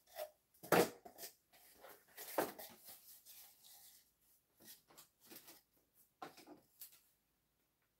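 Strips of corrugated cardboard being handled, slid and set down on a wooden table: two louder knocks about one second and two and a half seconds in, then lighter taps and scrapes that stop near the end.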